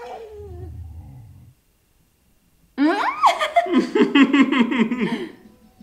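A dog's whining howl fades out, then after a moment of silence a woman laughs loudly, in quick pulses, for about two and a half seconds.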